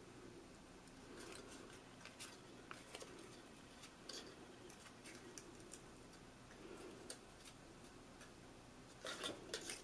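Faint rustling and small clicks of cardstock being handled as paper wheel tabs are pushed through slots in a cut-paper baby carriage, with a louder flurry of rustling near the end.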